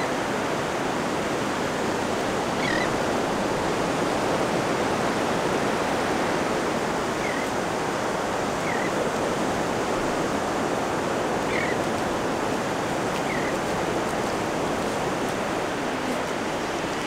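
Steady wash of small surf breaking and running up a flat, wet beach, with a few faint, short high chirps every couple of seconds.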